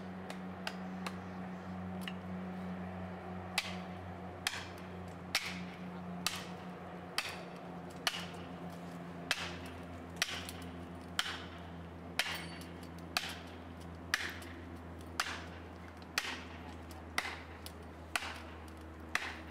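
Steady hammer blows, about one a second, starting a few seconds in, over a steady low hum.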